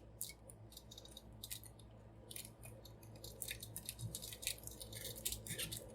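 Large plastic toy figure being handled and posed: light, irregular clicks and taps from its parts and joints, getting busier in the second half, over a steady low hum.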